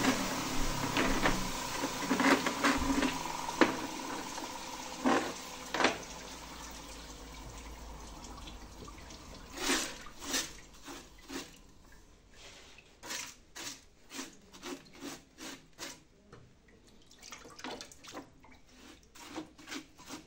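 Water dripping and splashing, fading over the first several seconds, then short clicks and knocks about two a second as wet, freshly cut stone pieces are handled.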